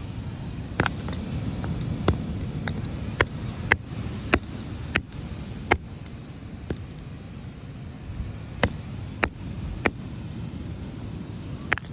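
A hand-held rock striking a larger rock again and again, about a dozen sharp clacks at an uneven pace with a pause of about two seconds in the middle, over a steady rumble of wind.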